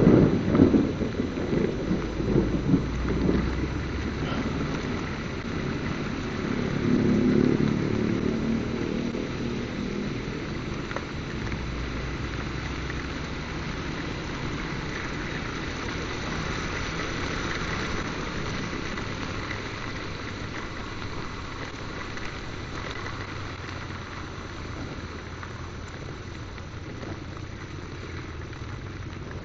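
Heavy rain on a moving motorcycle, picked up by the rider's microphone as a steady hiss. The motorcycle's engine runs underneath and is most noticeable in the first ten seconds or so.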